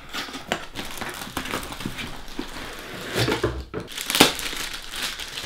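Cardboard box being opened and a bag's clear plastic wrapping crinkling and rustling as it is pulled out and handled, with irregular crackles and a few louder rustles about three and four seconds in.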